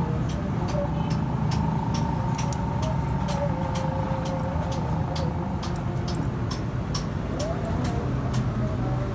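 Small motorcycle engine running steadily, a low rumble overlaid with irregular sharp ticks, about two or three a second.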